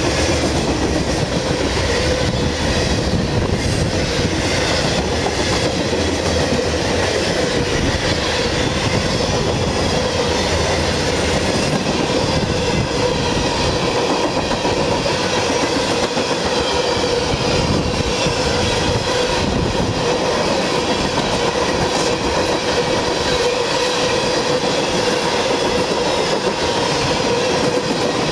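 Freight train of covered hopper cars and tank cars passing at speed: a loud, steady clatter and rumble of steel wheels on the rails, with a steady tone running beneath it. The low rumble eases somewhat about halfway through.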